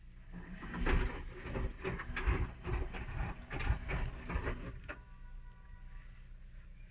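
Whirlpool washing machine in its main wash: the drum turns with laundry and water sloshing and knocking for about five seconds, then it stops and a quieter steady motor hum is left.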